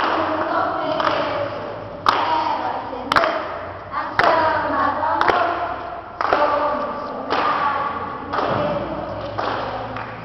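A group of children's voices chanting in unison in short phrases about once a second, each phrase starting with a sharp thump.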